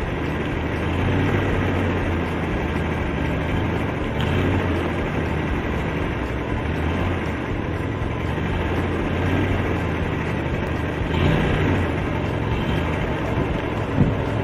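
A motor runs steadily with a low rumble, like a vehicle engine. A brief thump comes near the end.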